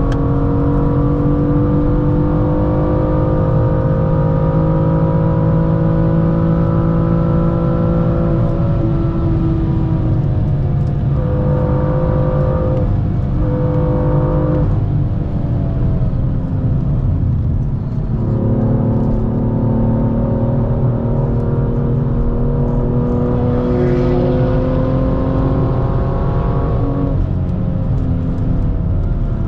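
BMW M2's turbocharged straight-six under load, heard from inside the cabin: the engine note climbs slowly through long pulls, breaks into a few short pulls near the middle, and drops and climbs again near the end. Heavy wind and road rumble run beneath it, the odd noise that turned out to come from an open window rather than engine damage.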